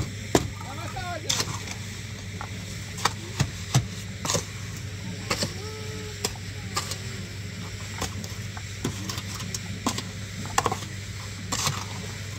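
Blocklaying work: irregular sharp knocks and scrapes of a shovel working mortar in a steel wheelbarrow and of concrete blocks being set and tapped into place, over a steady low hum, with faint voices now and then.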